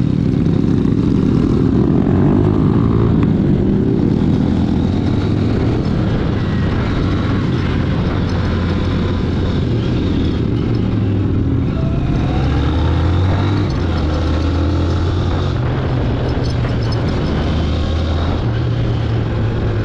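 Honda CB150F motorcycle's single-cylinder engine running while riding, its note shifting up and down with the throttle, over a steady rush of wind and road noise.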